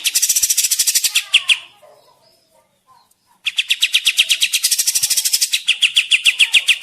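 Kapas tembak bird singing a fast, rattling trill of rapid repeated notes, in two long runs with a short pause between them.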